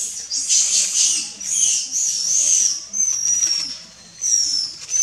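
Baby monkey giving a run of about six short, high-pitched squeals, each under a second, several sliding down in pitch at the end.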